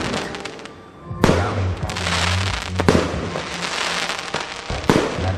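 Fireworks display: aerial shells bursting in sharp bangs, the first about a second in, then near three and near five seconds, over a continuous hiss and crackle of burning stars.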